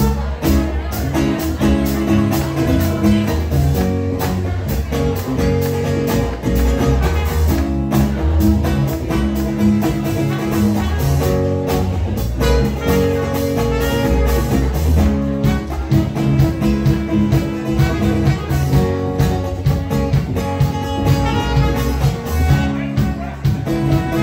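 Live band playing an instrumental passage: trumpet playing long held notes over strummed acoustic guitar, electric guitar and a drum kit keeping time on the cymbals.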